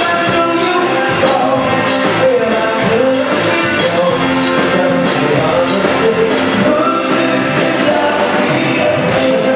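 Live band playing a song with a singer, drums keeping a steady beat.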